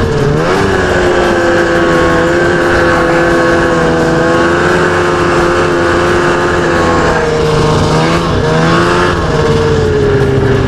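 Ski-Doo snowmobile engine running steadily at riding speed. Its pitch eases off and picks up again a couple of times as the throttle is worked.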